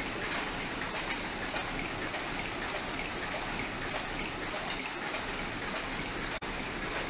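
Stäubli Delta 110 automatic drawing-in machine running, a dense steady clatter of fine rapid clicks as it threads warp ends through drop wires and heddles. The sound cuts out for an instant a little after six seconds.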